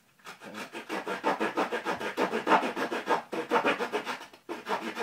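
Small saw blade of a Victorinox Farmer pocket knife sawing a notch into soft sapling wood, in quick, even back-and-forth strokes that pause briefly near the end.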